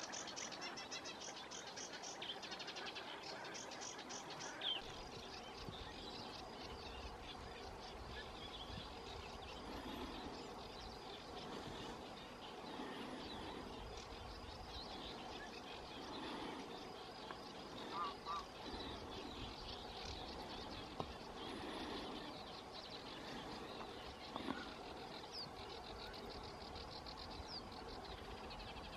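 Assorted wild bird calls and chirps, with fast rapid trills in the first few seconds and a few louder single calls later, over low wind noise.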